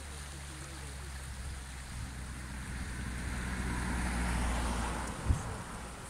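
A car passing on the road over the bridge, swelling from about two seconds in and fading away shortly before a single short thump, over the steady rushing of the river.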